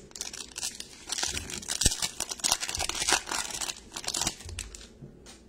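Foil wrapper of a 2020 Donruss football card pack being torn open and crinkled by hand, a dense crackling that runs from about half a second in to near the end, with a sharp snap near two seconds in.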